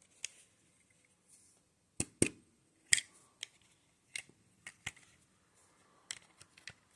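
Hard plastic Lego Technic pieces clicking and snapping as they are handled and pressed together. About a dozen sharp clicks come at irregular intervals, with a close pair about two seconds in.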